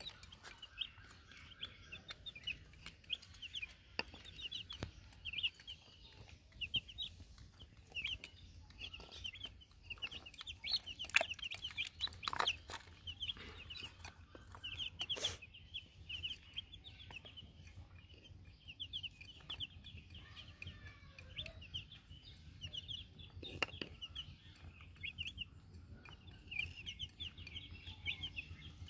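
Baby chicks peeping: a continuous stream of short, high, rapid chirps from several birds at once, with a few sharp clicks mixed in.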